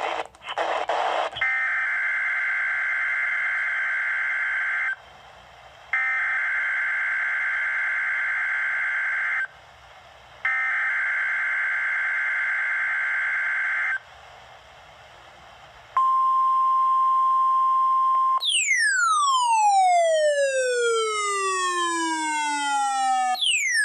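NOAA Weather Radio Required Weekly Test signal: the SAME digital header, a raspy two-tone data burst, sent three times about a second apart, followed by the weather radio's steady warning alarm tone for about two seconds. Then a tone with overtones glides steeply down in pitch over about five seconds, with a second short downward glide near the end.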